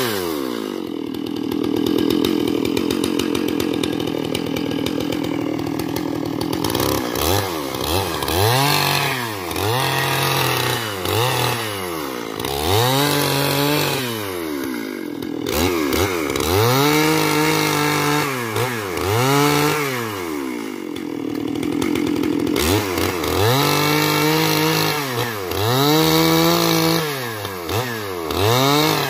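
Stihl MS 661 two-stroke chainsaw ripping lengthwise through a log to cut boards. For the first several seconds it runs steadily at high revs in the cut; after that the engine speed rises and falls over and over, every second or two.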